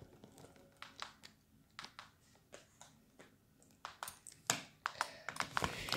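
Faint, irregular clicks and taps, a few a second, some louder near the end.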